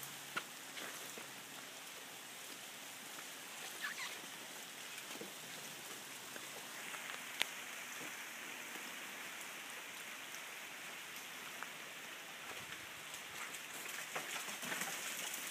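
Freezing rain falling steadily on ice-glazed trees and ground: an even patter with scattered sharp ticks. One louder click about seven seconds in, and more ticks near the end.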